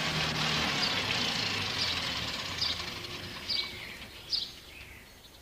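Wheeled excavator's diesel engine running, then fading away and dying over the first three seconds or so. A bird then chirps in short falling chirps, about one a second.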